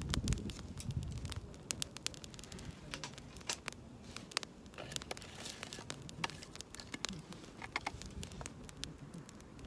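Wood campfire crackling, with irregular sharp pops and snaps. Wind rumbles on the microphone during the first second or so.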